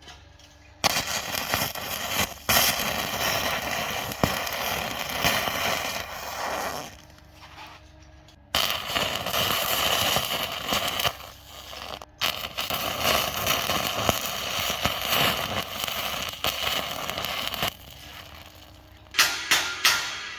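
Arc welding with a basic (low-hydrogen) stick electrode on galvanized steel tube: a loud, steady crackle in two long runs, broken briefly between them. Near the end, a series of sharp taps, about three a second.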